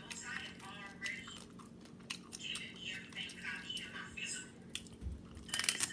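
Close-up chewing and biting of tacos, with wet clicking mouth noises and a louder crunch near the end. Faint voices sound in the background.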